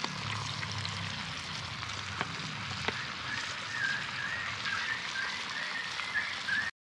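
Floured chicken pieces frying in hot oil in a pot over a wood fire: a steady sizzle, with a few light clicks. From about halfway a warbling whistle runs over it.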